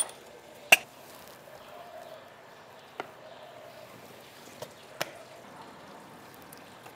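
About five sharp, irregular knocks and clicks of kitchen utensils being handled, the loudest about a second in.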